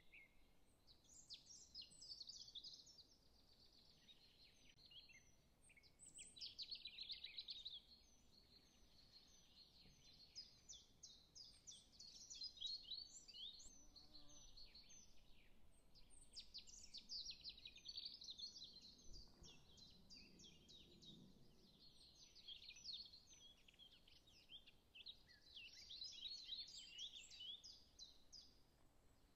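Faint chorus of small birds chirping and twittering, many short quick calls overlapping without a break.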